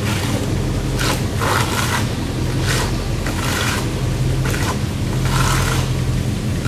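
Repeated scraping strokes of a hand tool working a stucco wall, one roughly every second, each short and sharp, over a steady low machine hum.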